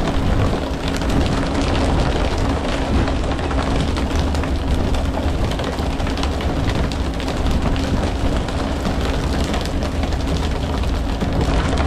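A fishing boat's engine running steadily with a low hum, under constant splashing and spattering of water.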